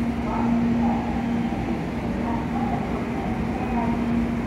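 Platform ambience beside stopped Shinkansen trains: a steady low hum under constant noise, with distant voices mixed in.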